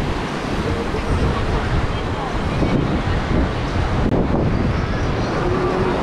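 Wind buffeting the microphone over steady breaking surf, with the scattered chatter of people on a busy beach.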